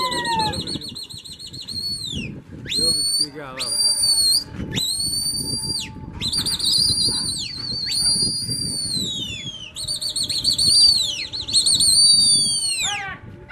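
A string of long, loud, high whistles, several overlapping and some warbling, from pigeon fanciers whistling to their flying flock.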